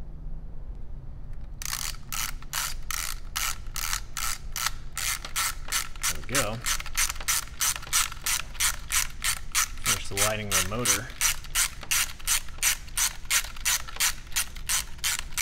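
Clockwork spring motor of a Canon Dial 35 half-frame camera being wound by twisting its base grip: the ratchet clicks evenly, about three times a second, starting a couple of seconds in. The mechanism has just been cleaned and lubricated, and the winding sounds a lot smoother.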